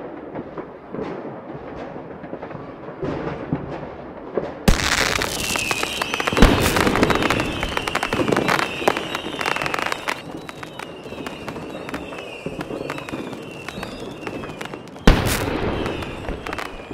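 New Year's fireworks: muffled popping and crackling at first, then about five seconds in a sudden, dense crackle of bursting fireworks with a string of short falling whistles. Two sharp bangs stand out, one soon after the onset and one near the end.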